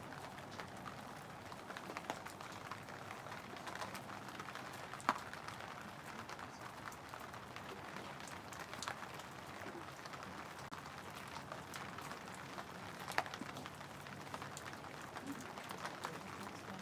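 Steady patter of light rain, with two sharp clicks standing out.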